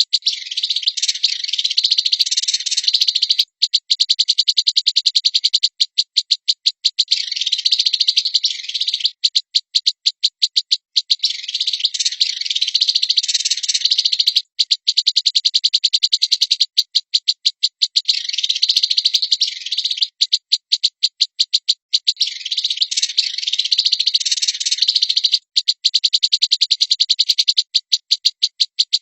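Songbird tutor ('masteran') recording for training a white-rumped shama: a high-pitched, fast rattling trill of about ten even ticks a second alternating with denser scratchy chatter, the phrase repeating every few seconds.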